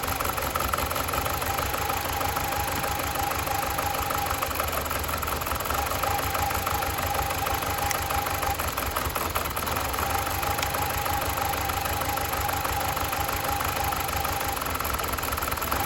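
BMW E46 318i's four-cylinder petrol engine idling roughly and steadily. The owner suspects a fuel or air mixture fault, since all four ignition coils are firing.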